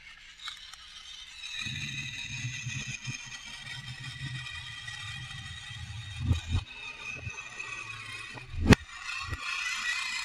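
Battery-powered TOMY FlipBot toy robot running: its small electric motor and gears whir with a high whine and a low hum, starting about a second and a half in. A few sharp knocks, the loudest about two-thirds through, come as it tips and flips over onto the wooden workbench.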